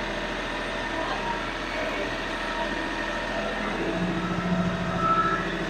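Kioti NS6010 compact tractor's diesel engine running steadily while the front loader hydraulics lift and curl a just-attached grapple. The engine note strengthens about four seconds in as the loader works.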